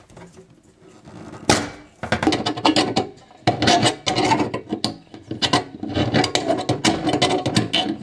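Tin snips cutting through the stainless steel of a sink's drain opening to widen it for a food waste disposer: a dense run of sharp metallic snips and crunches, beginning about a second and a half in.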